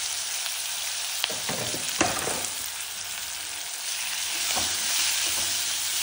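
Chopped green capsicum sizzling in hot oil with spices in a stainless steel kadhai. There are a couple of sharp clicks about one and two seconds in, and in the second half a silicone spatula scrapes and stirs the pieces.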